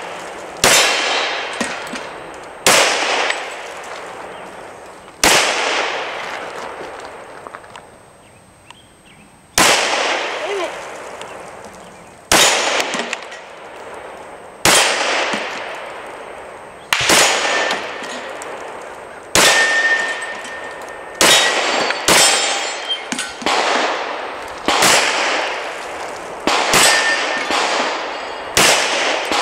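Glock 34 pistol firing .40 rounds at an unhurried pace, about fourteen shots spaced one and a half to four seconds apart. Each shot rings out, and a steel popper target clangs as it is hit.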